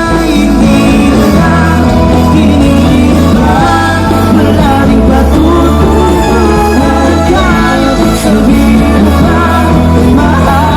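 Loud song with a singing voice over a steady heavy bass.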